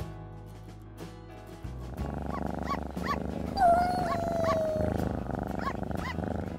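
Music, which about two seconds in gives way to a louder, brighter closing jingle. Over it about halfway through comes a single long cat meow, slowly falling in pitch, the loudest sound here.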